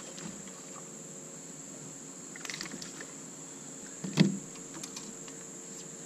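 Landing net and fish being handled on a boat deck: a few light rattles about two and a half seconds in, then one sharp thump about four seconds in. A steady high insect drone runs underneath.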